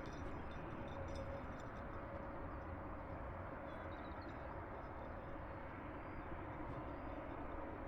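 Airbus A400M Atlas's four turboprop engines running with a steady drone and a constant hum, with no rise or fall.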